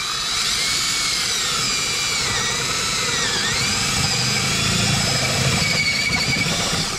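Cordless drill running a 1-inch spade bit through a plastic kayak hull: a steady motor whine with the rasp of the bit cutting. The pitch sags about halfway through as the bit bites under load, then recovers.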